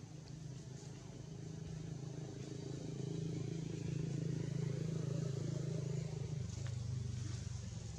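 A motor vehicle's engine hum swells as it passes, then drops in pitch about six and a half seconds in.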